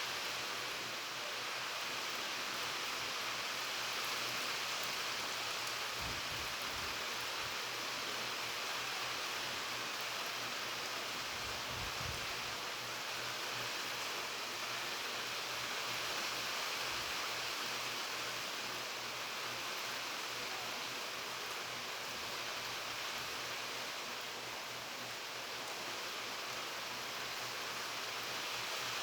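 Steady rain falling, an even hiss with a few soft low thuds now and then.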